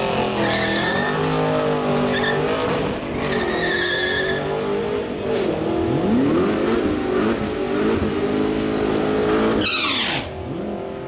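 Ford Falcon FG GS ute doing a burnout: the engine is held at high revs that rise and fall again and again while the rear tyres spin and squeal. Near the end the revs climb steeply once more, then fall away to a much quieter idle.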